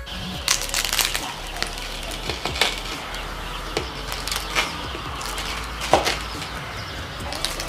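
A large kitchen knife slicing through the crisp baked phyllo crust of a custard pie (bougatsa) on a wooden cutting board: scattered, irregular crackles and crunches of the flaky pastry.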